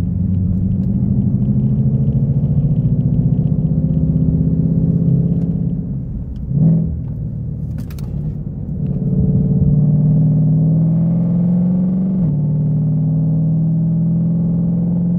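2020 Shelby GT500's supercharged 5.2-litre V8 pulling under acceleration, heard from inside the cabin with the exhaust in its loud mode. The engine note climbs steadily, eases off with a short blip about halfway through, and drops abruptly about twelve seconds in as the dual-clutch gearbox upshifts.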